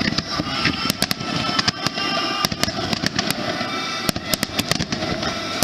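Fireworks going off in a rapid, continuous string of sharp bangs and crackles.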